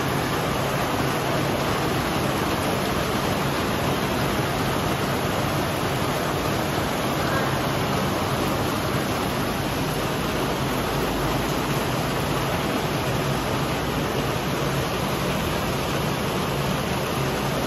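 Heavy rain falling steadily, an even rushing hiss that neither rises nor breaks.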